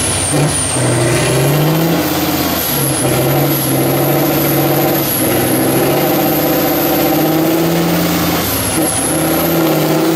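Tatra 6x6 trial truck's diesel engine revving hard under load as the truck climbs a muddy bank, its pitch rising and falling several times.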